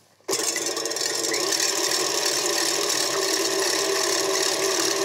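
KitchenAid Artisan stand mixer switching on about a third of a second in and running steadily, its whisk beating egg whites in the steel bowl: an even motor whir with a few steady tones.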